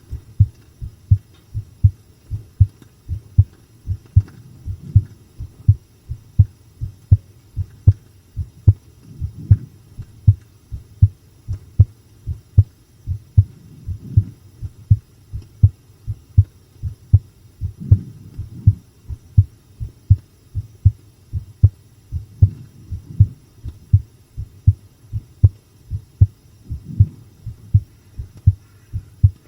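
A person's heartbeat heard close up: steady, regular lub-dub double thumps with a low hum underneath. This is the beat the uploader felt was strong rather than fast.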